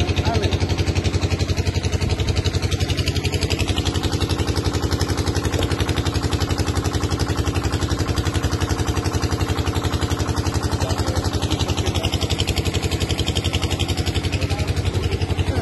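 Engine running steadily at a constant speed, with a fast, even pulse of firing strokes.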